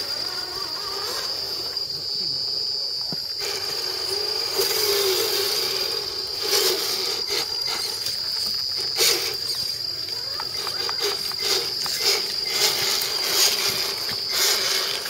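A steady high-pitched insect drone over the whine of small RC crawler trucks' electric motors and gearboxes, which wavers with the throttle. From about halfway on come many short clicks and crackles as the trucks crawl over dry leaves and roots.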